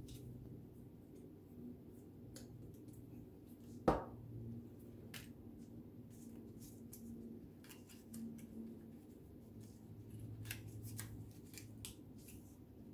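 Cut-paper pieces being handled and pressed into place on a paper collage: scattered light paper rustles and clicks, with one sharp thump about four seconds in.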